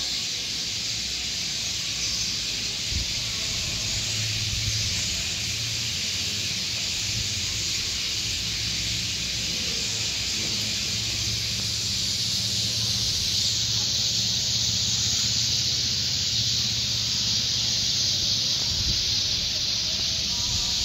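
A huge roosting flock of sparrows chirping all together in the trees, a dense, steady wall of high chatter, with a low hum underneath.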